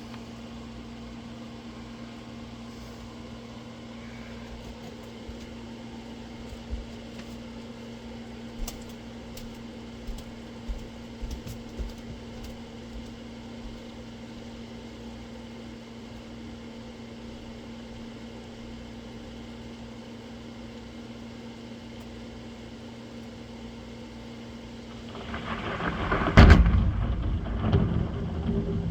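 A steady low hum with a few faint clicks. About 25 seconds in, a thunderclap breaks out, cracks loudly and rolls on rumbling.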